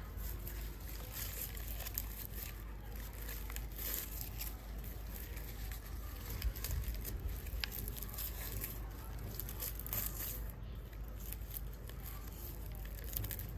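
Dry banana leaf and banana-fibre string rustling and crackling as they are wound around and tied onto a ring of folded banana leaf, a dense run of small crinkles and tearing sounds.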